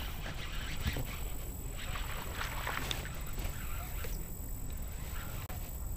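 Spinning reel being cranked to bring in a hooked pickerel, under a steady low rumble of handling and water noise from the kayak, with a few faint ticks.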